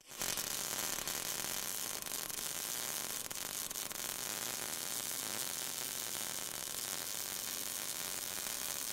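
MIG welding arc crackling steadily, a high, even sizzling hiss.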